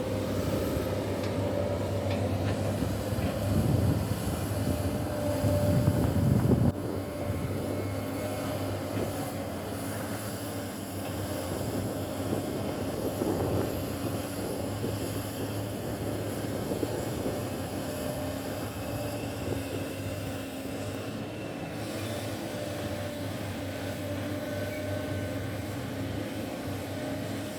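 Sany hydraulic excavator's diesel engine running steadily at work, louder for a few seconds and then dropping off suddenly about seven seconds in.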